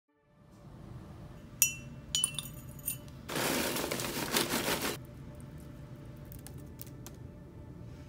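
Glass clinking three times, each clink ringing briefly, then a rushing hiss lasting about a second and a half, over soft background music.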